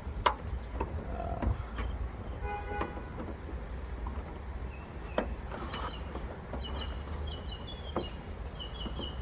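Scattered plastic clicks and knocks from the clips of a Toyota Avalon's high-mount brake light housing being squeezed and worked loose by hand, over a steady low rumble. Small high bird chirps repeat through the second half.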